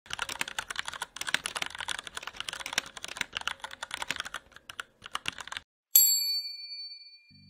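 Rapid computer keyboard typing, many fast key clicks, that stops about five and a half seconds in; a moment later a single bright ding rings out and fades away over about a second and a half.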